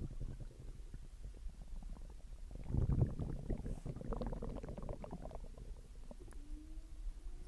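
Human stomach growling and gurgling while digesting after a meal. There is a louder run of bubbling gurgles about three seconds in, and a thin drawn-out whining tone that rises slightly near the end.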